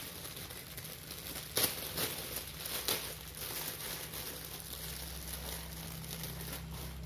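Plastic packaging rustling and crinkling as the solar panel's accessories are taken out, with a few sharp crackles about one and a half, two and three seconds in.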